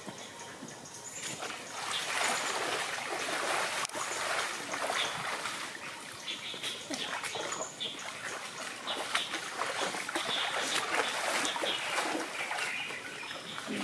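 Water splashing and sloshing in uneven surges as a giant panda moves about in its pool.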